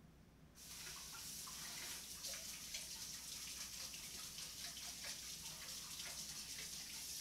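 Kitchen faucet turned on about half a second in and running steadily into the sink, with light clatter as the bean strainer is rinsed under it.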